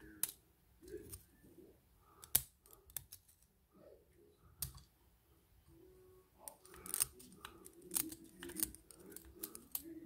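Small sharp metal clicks of steel tweezers working inside a BKS lock cylinder to pick out its pins and springs. The clicks are scattered at first and come thicker in the last few seconds.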